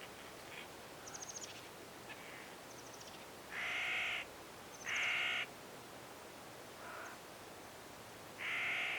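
Crow cawing: three loud caws of about half a second each, two of them a second apart in the middle and one near the end. Fainter calls and a quick high-pitched rattle come about a second in, over a steady background hiss.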